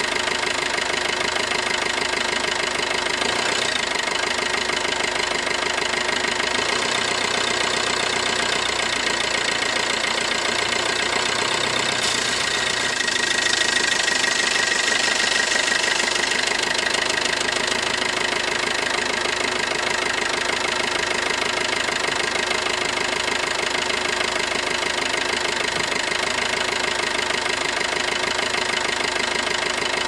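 Toy remote-control car running: a steady motor-like drone with several held tones, swelling slightly about halfway through.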